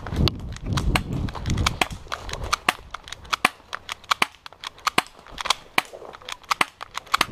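Airsoft pistols firing: an irregular run of sharp cracks, several a second, with crunching steps through brush in the first couple of seconds.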